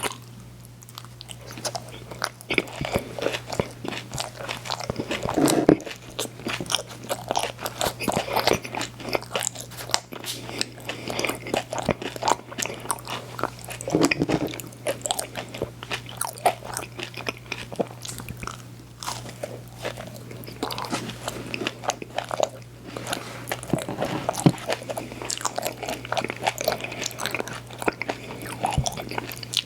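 Close-miked eating of a frozen ice cream sandwich: repeated crunchy bites and wet chewing. A steady low electrical hum runs underneath.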